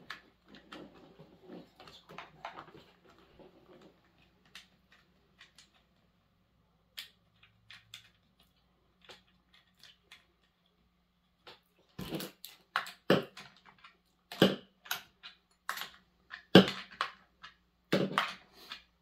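Clicks and knocks of plastic and metal parts as a chainsaw's bar, chain and clutch cover are fitted by hand, scattered at first, then a run of louder clunks about two-thirds of the way in.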